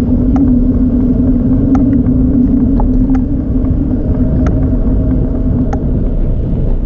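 Wind buffeting and rolling rumble on a bicycle-mounted camera riding over pavement, with a steady low hum that fades near the end and a few scattered light ticks.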